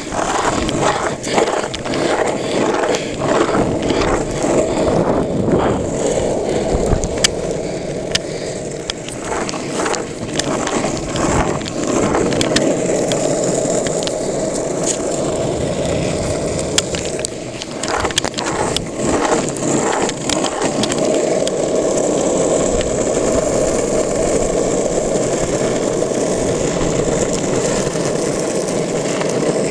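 Longboard wheels rolling over asphalt: a steady rumble, with irregular sharp clicks and knocks through the first two-thirds, then smoother rolling.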